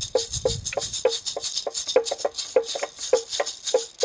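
Calabash maraca filled with small stones shaken in a steady rhythm, about three to four strokes a second. Each stroke gives a hollow knock with a rattle of stones.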